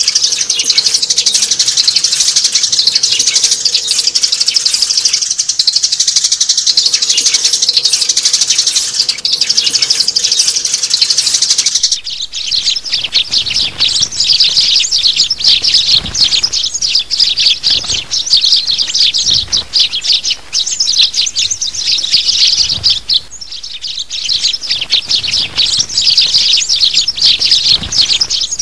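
Sparrows, a group of adult birds, chirping densely and without pause, recorded as a lure call for trapping sparrows. About twelve seconds in, the chirping changes abruptly to a choppier run of separate chirps.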